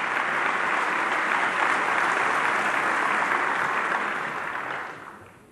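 A large audience applauding steadily, the clapping dying away about five seconds in.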